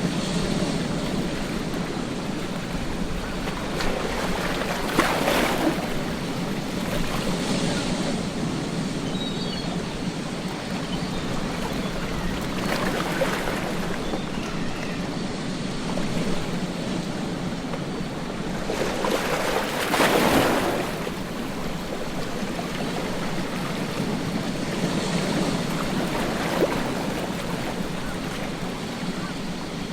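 Ocean surf breaking on a beach: a steady wash of water with louder waves crashing every several seconds, the biggest about two-thirds of the way through.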